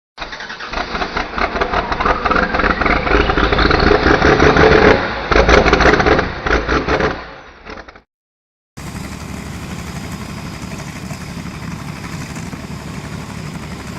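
Engine revving and rising in pitch for several seconds, then fading and cutting off. After a short break, a steadier engine drone runs on.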